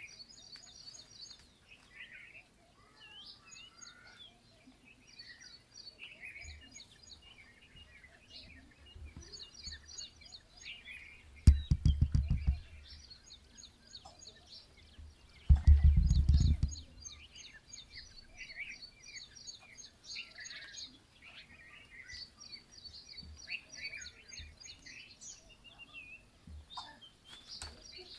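Small birds chirping and calling continuously in many short high notes. About two-fifths of the way in, and again just past halfway, come two loud, low rumbling thuds, each about a second long.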